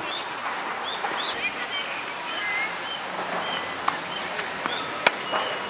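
Small birds chirping again and again in short rising calls over a steady outdoor hiss, with one sharp knock of a tennis ball about five seconds in.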